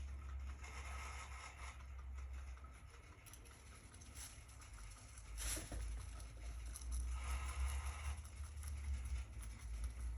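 Pet rabbit nibbling and chewing grass: a quick patter of small crisp ticks with soft rustling, one sharper click about five and a half seconds in, and a low rumble of wind on the microphone underneath.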